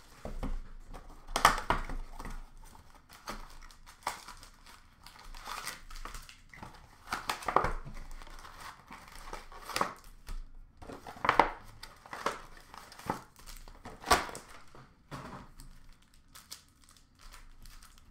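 Hockey card mega boxes being torn open by hand: irregular bursts of crinkling and tearing of the wrapping and cardboard as the boxes are opened and the packs pulled out. The handling grows quieter and sparser near the end.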